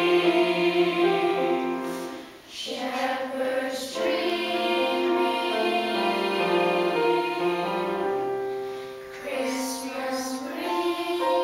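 A choir with children's voices singing a slow song together, the sound briefly dropping away between phrases about two and a half seconds in and again around nine seconds.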